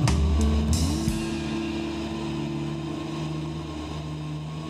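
Background music: a few drum hits in the first second, then held notes ringing on and slowly fading, with one note sliding up about a second in.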